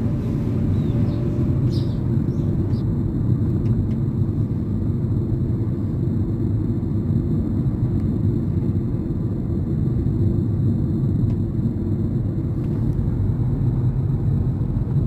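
Steady low road-and-engine rumble inside the cabin of a moving car.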